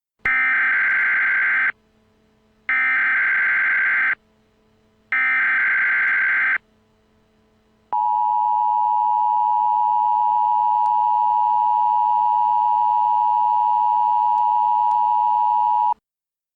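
Emergency Alert System tones: three short bursts of SAME header data, then the steady two-tone attention signal for about eight seconds, which cuts off abruptly.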